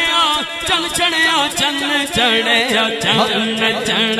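A man singing a naat without accompaniment, drawing out a wordless, ornamented melodic passage. His voice bends up and down over a steady low held note.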